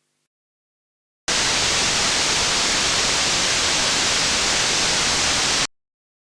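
Synthesized white noise from Ableton Live: a steady, even hiss strongest in the highs, starting about a second in and cutting off abruptly near the end.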